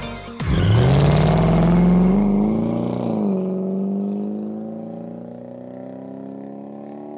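Car engine accelerating, its note climbing over the first second or two, then dropping as the car passes about three seconds in and fading to a quieter, slowly rising note as it pulls away.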